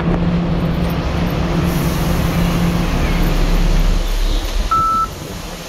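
Bus engine idling with a steady low hum in the bus terminus. About five seconds in, an Octopus fare-card reader gives a single short beep as a card is tapped to pay the fare.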